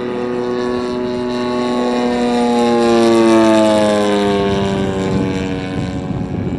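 Radio-control Cessna 182 model making a low pass overhead: the steady drone of its engine and propeller grows louder, peaks about three seconds in, and drops in pitch as the plane goes by and moves away.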